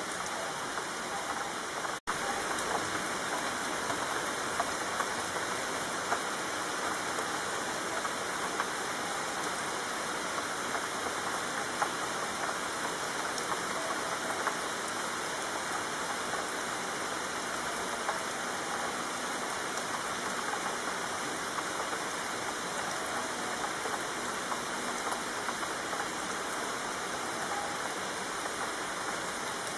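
Steady rainfall: an even hiss of rain with scattered drop ticks. The sound cuts out for an instant about two seconds in.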